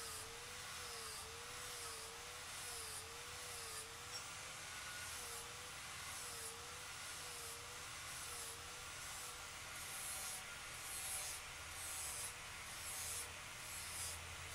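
Angle grinder with a flap disc grinding the rough edge of a cut 4 mm steel disc: a steady hiss over a motor whine that rises and falls in pitch about once a second as the disc is worked against the edge.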